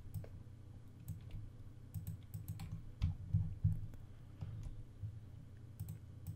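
Scattered soft clicks of a computer keyboard and mouse, irregular and a few per second, over a low hum.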